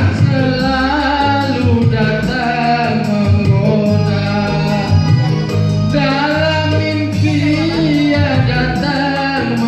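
Live music: a man singing into a microphone over electronic keyboard accompaniment, with a steady beat and bass line.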